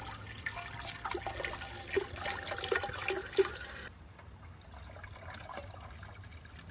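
Water pouring from a plastic bottle into a metal samovar, splashing into the water chamber around the central chimney. About four seconds in it drops to a quieter, thinner trickle.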